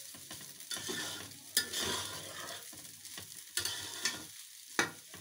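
Flat metal spatula stirring fried rice in a large aluminium pan over full heat: the rice sizzles steadily, with a sharp scrape of the spatula against the pan every second or so.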